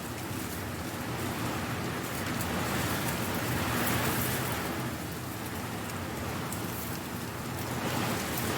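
Strong wind gusting through dry leaves, which rustle in a steady hiss. It swells to a peak about four seconds in, eases off, then swells again near the end.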